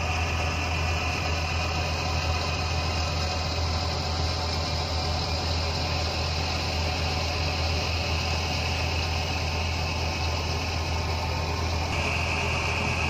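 A boat's engine running steadily, heard from on board as a low, even drone; a higher whine steps up near the end.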